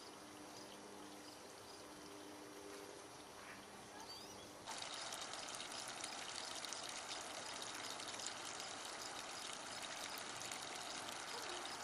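A steady hiss of running, trickling water cuts in abruptly a little under five seconds in and holds steady. Before it there is only a faint low hum with small high chirps.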